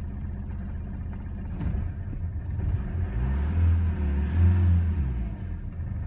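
Renault Master van engine idling steadily after a successful start, then revved twice in quick succession about halfway through before settling back to idle. It is running again because the replaced immobiliser ring now reads the key.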